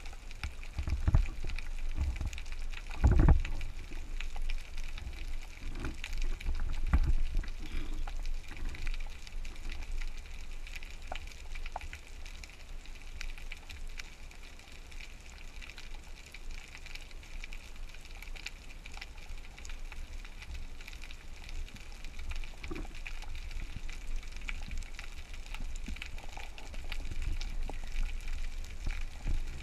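Underwater ambience picked up by a diver's camera on a rocky reef: a steady crackle of faint clicks with a faint steady high tone, broken by low knocks and rumbles from the diver's own movement, the loudest about three seconds in.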